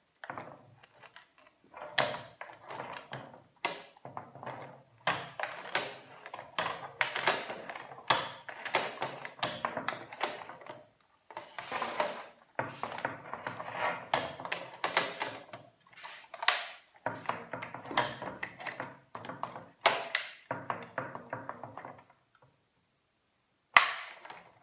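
Hand pop riveter being worked while setting rivets, with metal parts handled: a long run of irregular clicks, clacks and knocks. It pauses briefly near the end, then comes one sharp, loud snap.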